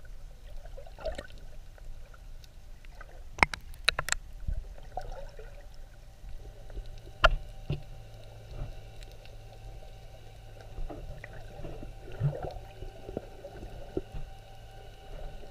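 Underwater sound picked up by a submerged camera: muffled water movement over a steady low hum. A few sharp clicks come about three to four seconds in, and another single click around seven seconds.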